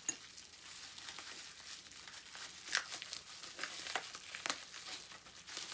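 Packaging crinkling and crackling by hand as a pin is unwrapped, with a few sharper crackles in the middle.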